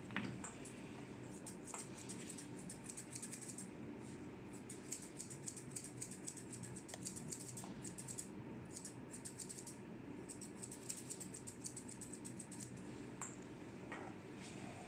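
Grooming scissors snipping a Shih Tzu's facial fur in quick runs of small crisp clicks, pausing briefly between runs. A single knock sounds right at the start.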